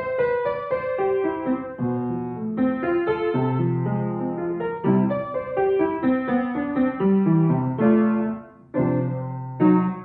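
Upright piano played with both hands: a moving melody over held bass chords. Near the end the playing breaks into separate struck chords with short gaps between them.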